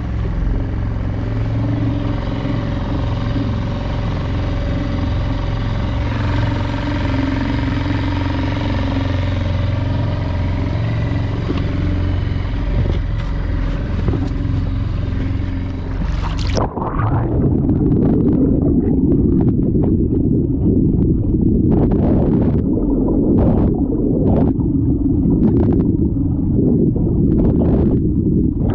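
A small boat's outboard motor running steadily at cruising speed, heard from on board an inflatable dinghy. About seventeen seconds in the microphone goes under water: the sound turns suddenly muffled into a low underwater churning with occasional knocks.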